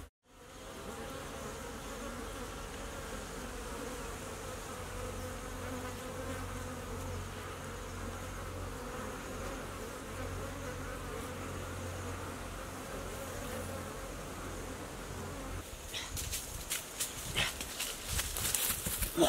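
A swarm of bees humming steadily at their nest in an earthen mound. Near the end the hum gives way to rustling and snapping of steps through undergrowth.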